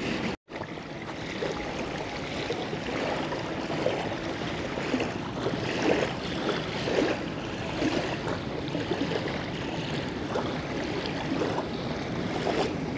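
Small river waves lapping at the shoreline in a steady wash of water, with small irregular splashes.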